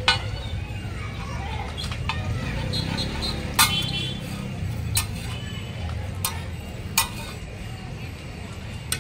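Metal spatula clinking and scraping on a large flat iron griddle (tawa) as an omelette is cut and lifted, a handful of sharp clinks a second or two apart, the loudest about three and a half seconds in. A low, steady rumble of street traffic runs underneath.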